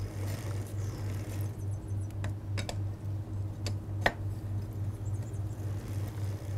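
A few sharp metallic clicks, the loudest about four seconds in, as a bicycle pedal is screwed into its crank arm by backpedaling the crank against a pedal spanner. A steady low hum runs underneath.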